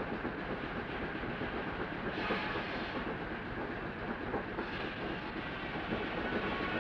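Steam-powered mill machinery running: a steady, dense mechanical noise that stays at an even level, brightening briefly twice.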